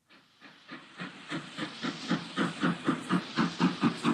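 Steam locomotive chuffing, fading in and growing louder, then keeping a steady beat of about four chuffs a second.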